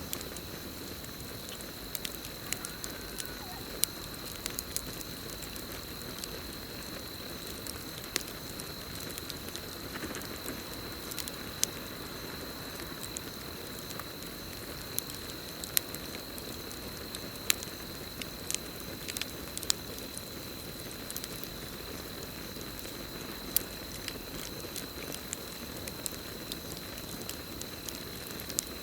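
Campfire burning with a steady hiss and irregular sharp crackles and pops, over a continuous high-pitched chorus of crickets.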